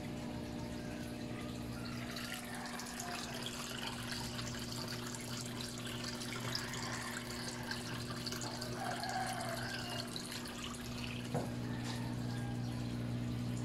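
Water pouring and splashing into an aquarium from a filter return, a steady trickle of small drips and bubbles over a low hum. A single short knock about eleven seconds in.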